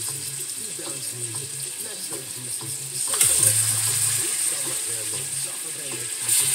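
Chicken pieces frying in hot oil and curry powder in a stainless steel pan: a steady sizzle that gets louder about three seconds in and again near the end, as more pieces are laid into the pan with tongs.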